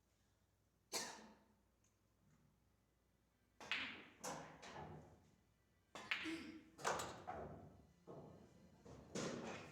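Pool balls clacking: one sharp click about a second in, then several quick clusters of clicks through the rest of the stretch, as cue ball and object balls strike each other and the cushions.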